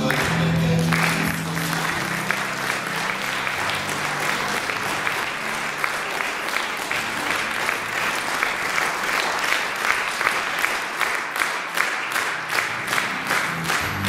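Audience clapping steadily in a hall. A low held chord from the song that just ended dies away in the first couple of seconds.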